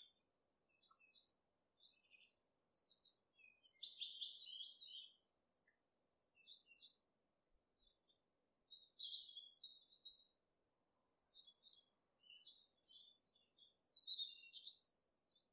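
Birds chirping: many short, high-pitched calls in quick runs with brief pauses, loudest about four seconds in and again near the end.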